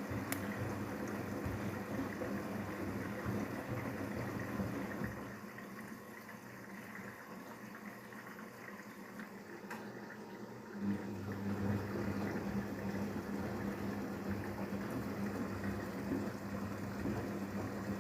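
Daewoo DWD-FT1013 front-loading washing machine in the cooldown stage of a 95°C cotton drum-clean cycle: water sloshing and running in the drum while the motor turns it. The motor hum stops about five seconds in and starts again about eleven seconds in, as the drum pauses and turns again.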